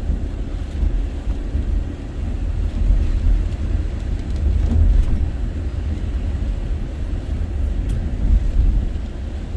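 Steady low rumble of road and engine noise inside the cabin of a moving work van, heavy with tools, a generator and fuel.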